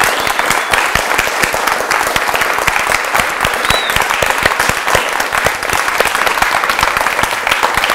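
A small seated audience applauding steadily.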